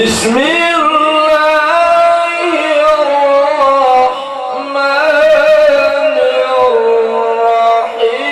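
A male qari recites the Quran in the melodic tilawah style, amplified through a handheld microphone. He holds long notes with ornamented turns and pauses briefly for breath about four seconds in and again near the end.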